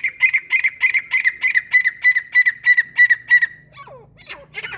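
Female francolin (teetar) calling: a fast, even run of short sharp notes, about four a second, that stops about three and a half seconds in, followed by a few fainter scattered notes.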